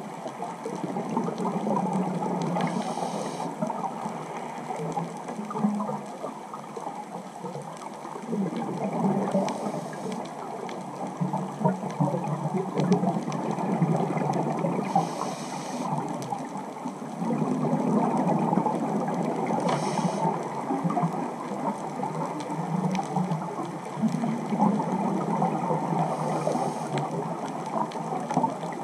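Underwater sound of scuba breathing through a regulator: a continuous bubbling gurgle of exhaled air, with a short hiss every several seconds.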